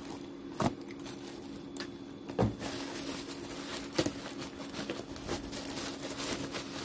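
Bubble wrap rustling and crinkling as a hand digs through it to pull out a cylindrical battery cell, with a few sharp clicks and a dull knock about two and a half seconds in. A steady low hum runs underneath.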